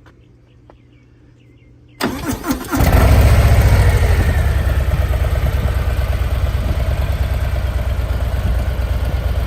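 Harley-Davidson Milwaukee-Eight 117 V-twin motorcycle engine starting. About two seconds in the starter cranks briefly, the engine catches with a quick surge, and it settles into a loud, steady idle.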